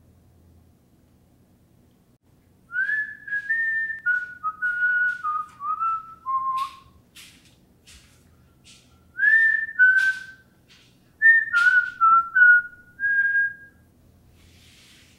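A person whistling a tune in three phrases of short gliding notes, with a few sharp clicks between the phrases.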